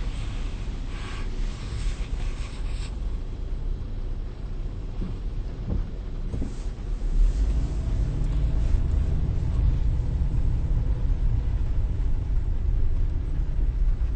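Steady low rumble of engine and road noise inside a car's cabin, growing louder about halfway through, with a brief rustle of handling noise between about one and three seconds in.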